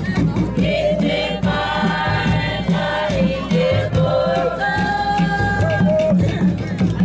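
A group of voices singing together in long held notes, over a steady low rhythmic beat.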